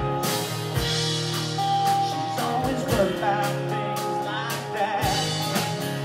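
Live band playing: acoustic and electric guitars over a drum kit with a steady beat. A melody line holds one long note about two seconds in, then wavers and bends.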